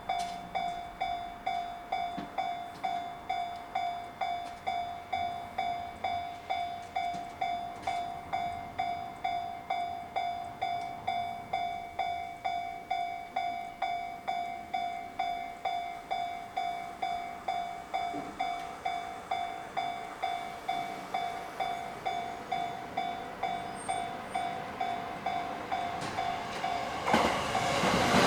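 Railway level crossing warning signal ringing in a fast, even rhythm of single pitched dings. Near the end the noise of an approaching Tokaido Line train rises quickly and begins to drown it out.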